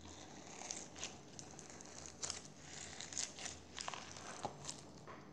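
Crunchy slime being squeezed and kneaded by hand, giving a run of faint, irregular crackles and pops.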